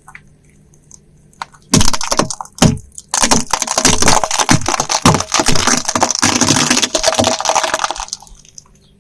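Car tyre rolling over and crushing a hard, brittle object: a run of loud cracks and crunches starting about two seconds in, becoming a dense crackle, and ending about a second before the end.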